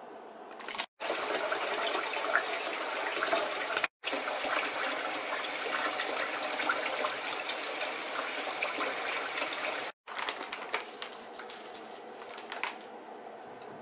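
Kitchen tap gushing into a pot of starchy pasta water in a stainless-steel sink, a steady rush of water that drops out abruptly for a split second twice. Near the end, a couple of seconds of crackling from a plastic bag being handled.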